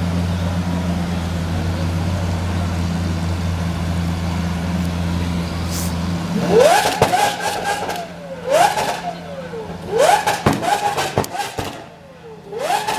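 Modified Lamborghini with a loud aftermarket exhaust, idling with a steady low drone. About halfway through it is revved four times: each rev is a quick rising howl that falls back, with crackles from the exhaust.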